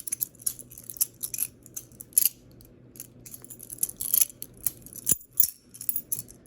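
Cheap, loosely built balisong (butterfly knife) being flipped by hand: irregular sharp metallic clicks and clacks, several a second, as its handles swing and strike. Its pins work loose and its handles have play.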